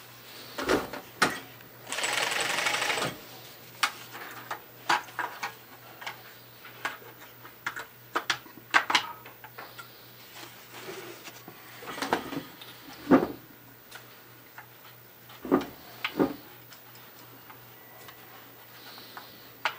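NC TPB chainstitch carpet binding machine running in one short burst about two seconds in. Around it come scattered sharp clicks and knocks as a metal tape folder is fitted and binding tape is fed through it by hand.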